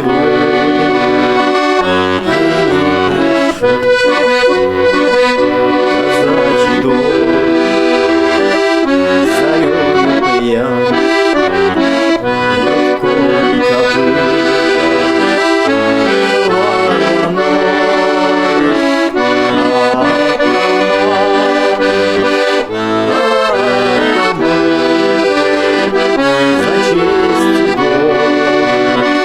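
Instrumental music: held chords under a moving melody, with no singing.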